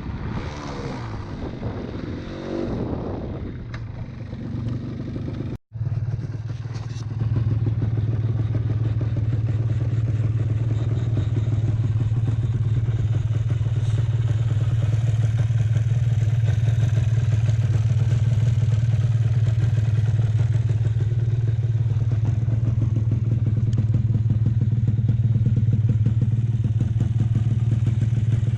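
Suzuki MX125 trail motorcycle engine running under way, with rattling and knocking over the engine note. The sound cuts out for an instant about five and a half seconds in. About seven seconds in it settles into a louder, steady engine drone that holds on.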